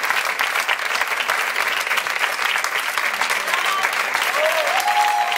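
An audience applauding steadily at the end of a song, the clapping continuous and dense, with a voice or two calling out near the end.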